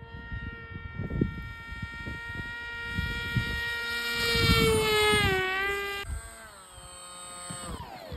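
An RC airplane's motor and propeller whining in flight, getting louder and dipping in pitch as the plane passes close about halfway through, then falling in pitch near the end as the throttle comes off and the plane comes down to land on the snow. Wind buffets the microphone underneath.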